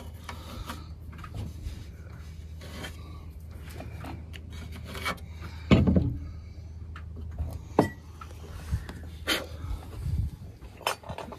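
Hand work on a piece of timber: scraping and rubbing on wood, broken by four sharp knocks, the loudest about halfway through.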